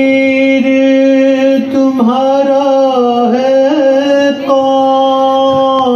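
A man singing an Urdu salaam into a microphone, drawing out one long note on a single vowel, its pitch wavering a little in the middle before settling again.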